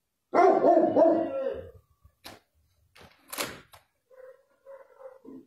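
A dog barking loudly, a couple of barks in the first second and a half, followed by a few sharp knocks.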